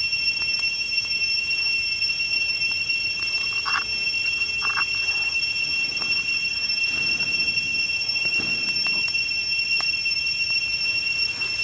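Insects droning steadily at two high pitches, with two brief mid-pitched sounds a little under four and five seconds in.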